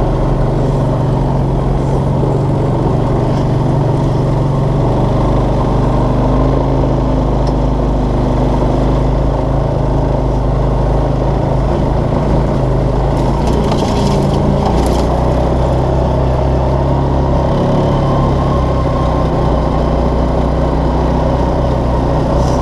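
Linhai Big Horn 400 UTV engine running steadily while the machine is driven at an even, modest pace. A short burst of higher noise comes a little after halfway.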